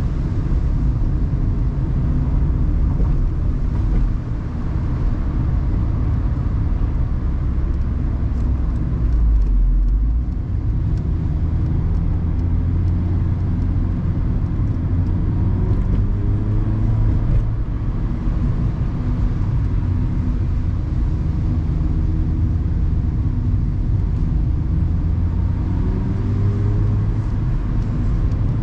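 Mazda ND Roadster's four-cylinder engine pulling the car along, heard from the open cockpit over tyre and road noise, its pitch rising and falling with the revs and climbing twice, about halfway through and near the end. A deep low rumble stands out briefly about ten seconds in.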